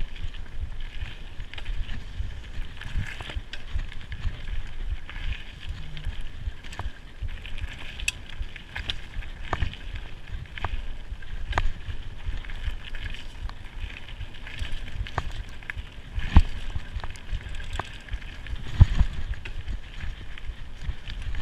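Mountain bike rolling fast down a dirt forest trail: a steady rumble of knobby tyres on dirt and the bike rattling over roots and stones, with frequent sharp knocks and clicks. Two heavier knocks stand out, about 16 and 19 seconds in.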